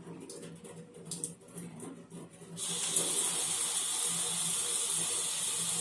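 Water from a Grohe fitting starts to rush about two and a half seconds in, then runs steadily with a hiss, its flow set by a screwdriver adjustment.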